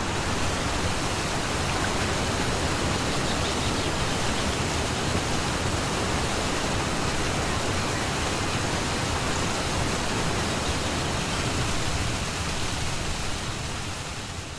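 Steady rushing of flowing river water, an even wash of noise with no distinct events, fading out over the last couple of seconds.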